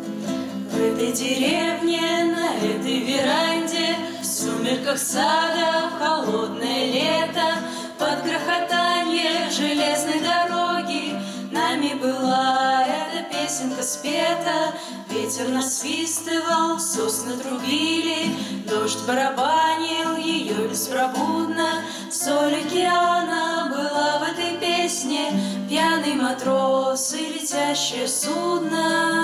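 Women's voices singing together to an acoustic guitar accompaniment: a song performed with guitar.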